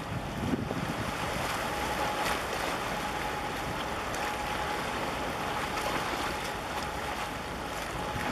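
Wind buffeting the microphone over sea water washing against concrete breakwater tetrapods, an even rushing noise, with a faint steady high tone through most of it.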